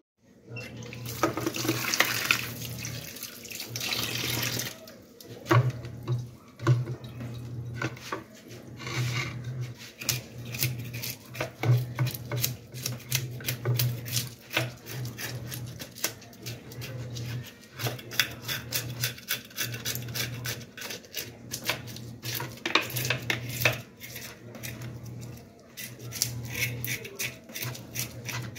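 A knife scraping the scales off a mojarra on a plastic cutting board in a concrete sink: a long run of quick, rasping strokes. A tap runs for the first few seconds.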